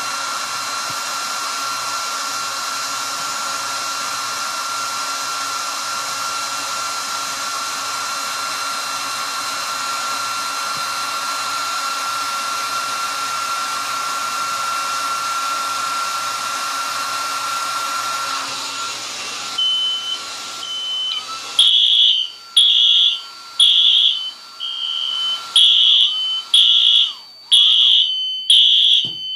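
Hair dryer blowing steadily with a thin whine as it heats a heat detector, then cutting off about 19 seconds in. After a few short beeps, the SK4 fire alarm system's horn starts sounding loud half-second blasts, about one a second in groups of three: the heated detector has tripped the alarm.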